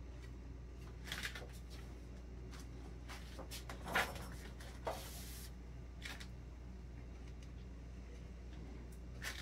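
Scattered soft knocks and clicks as a cake turntable is turned by hand, the loudest about four seconds in, with a brief hiss just after; a steady low hum runs underneath.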